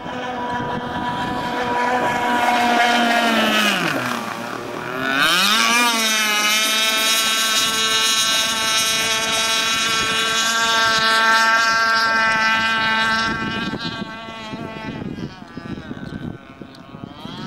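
Pro Boat Shockwave 55 RC boat's two-stroke petrol engine running on the water: the pitch drops around 4 s as the throttle eases, climbs back up, and holds a steady high whine at speed. It fades and turns uneven from about 14 s.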